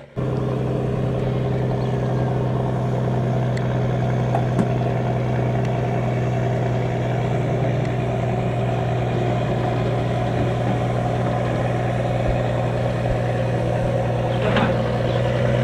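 Fishing boat's marine diesel engine running steadily, an even low drone.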